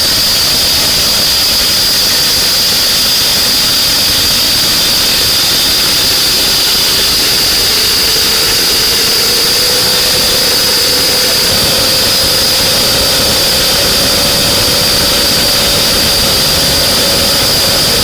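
Homemade jet engine spun by a constant compressed-air jet in its inlet, with its combustion chamber burning: a loud steady rushing hiss with a high whine over it. About eight seconds in, a lower tone rises a little and then holds as the shaft speeds up, a sign that combustion is adding torque while the air jet stays constant.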